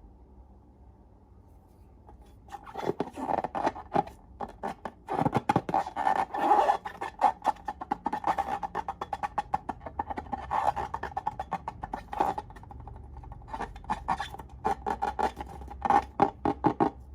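Slime being squished and worked by hand: rapid runs of wet clicks and pops that start about two and a half seconds in and come and go in bursts.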